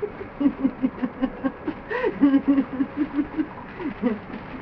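A person laughing: a long run of short voiced pulses, about five a second, with a brief higher burst about two seconds in.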